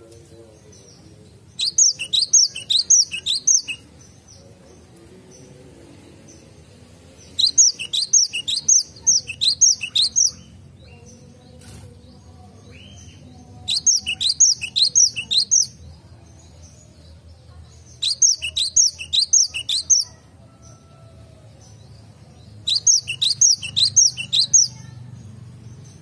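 Cinereous tit (gelatik batu) singing: five bouts of quick, high-pitched repeated notes, each bout about two seconds long and a few seconds apart.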